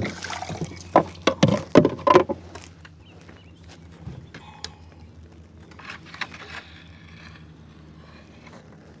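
Several sharp knocks and clatters in the first two seconds or so, then scattered small clicks over a faint, steady low hum: fishing gear being handled in a kayak.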